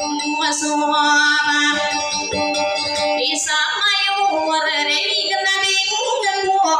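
A woman singing dayunday, the Maranao sung courtship form, to her own acoustic guitar; long held notes that waver in pitch, sung without a break.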